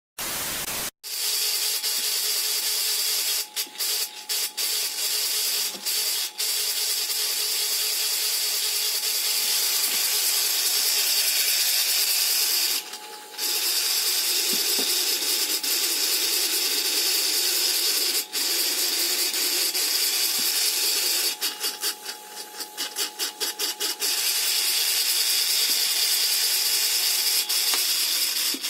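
A short burst of TV static, then a small three-winding electric motor with a plastic drive gear on its shaft, running from mains through an undersized 1 µF capacitor. It runs with a steady mechanical rattle and hum, weak and not running properly for lack of capacitance. The sound drops out briefly about halfway through and stutters on and off a few seconds later.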